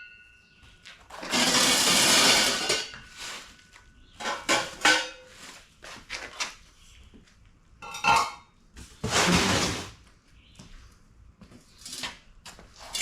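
Steel exhaust pipe sections and bends being handled and set down: scattered metal clanks and clinks, some ringing briefly, with two longer scraping rushes of about a second each, one early and one just past the middle.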